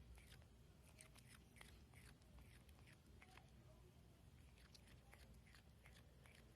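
A cat grinding its teeth: faint, irregular clicking and scraping, a few clicks a second.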